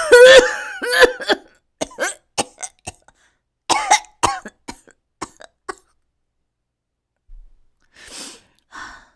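A young woman acting out a choking coughing fit, as when spicy food goes down the wrong way: a harsh, strained burst of coughs, a string of short coughs, another hard burst about four seconds in, then a pause and two faint breathy sounds near the end.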